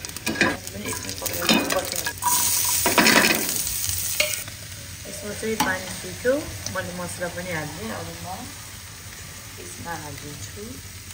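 Tempering of small seeds crackling and sizzling in hot oil, with a loud burst of sizzling about two seconds in that lasts a couple of seconds. After it a metal ladle stirs chicken curry in a pressure cooker, and the sizzling fades to a low frying sound.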